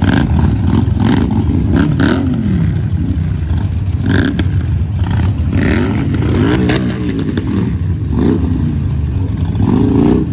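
Motorcycle engines running over a steady low rumble, revving so that the pitch rises and falls several times.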